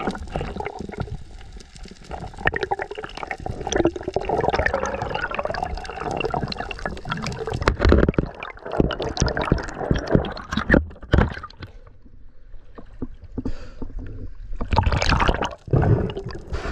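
Water gurgling and splashing close to the microphone, with many sharp clicks and slaps. It goes quieter about twelve seconds in, then splashes loudly again near the end.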